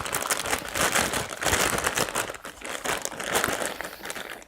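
Plastic packaging crinkling continuously as a plush toy is handled and unwrapped, a dense run of quick crackles that stops abruptly at the end.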